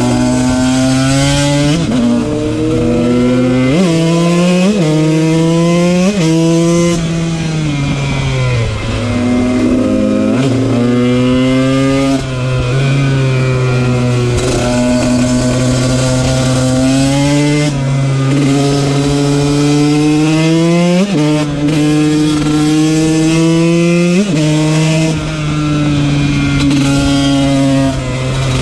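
KTM 125 motard's two-stroke engine accelerating hard through the gears: the pitch climbs and drops sharply at each upshift, several times in the first seven seconds. It eases off and slows around eight to ten seconds in, then pulls again in long rising runs with shifts about twenty-one and twenty-four seconds in.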